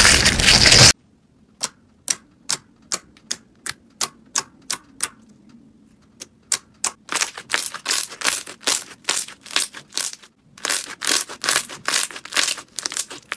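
Slime being handled, making a run of sharp clicking pops. Loud crunching stops abruptly about a second in. Separate clicks follow at about two or three a second, then turn faster and denser for the rest of the stretch, with one short break.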